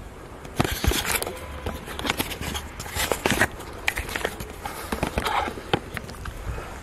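Footsteps climbing stone steps, sharp gritty scuffs about twice a second, over a low rumble on the microphone.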